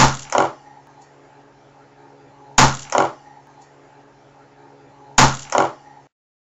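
Sharp bang of a pressurised charge of pure oxyhydrogen (HHO) detonating in a small test chamber, followed by a second crack about half a second later. The pair of bangs comes three times, about 2.6 s apart, over a steady low electrical hum, and the sound cuts off suddenly near the end.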